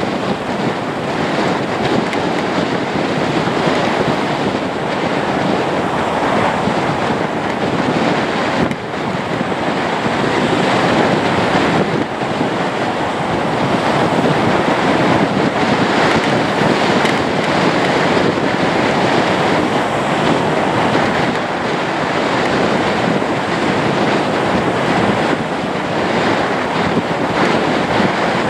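Lockheed Martin C-130J Hercules with its four turboprop engines running as it taxis, a loud, steady roar of engines and propellers.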